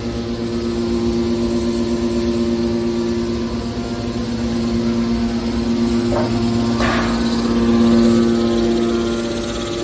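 Hydraulic scrap metal baler running: its power unit gives a steady, even-pitched hum, with a brief squeal about seven seconds in.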